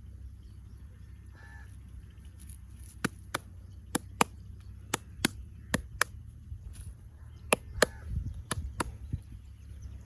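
A masseur's hands striking during a head massage: about a dozen sharp, loud clicks, coming in quick pairs, over a steady low rumble.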